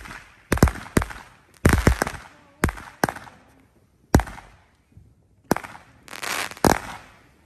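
Magnus Fireworks 'Timberwolf' 16-shot 200-gram cake firing: a string of sharp launch and burst reports, several in quick pairs, each trailing off in a fading hiss, with a denser cluster near the end.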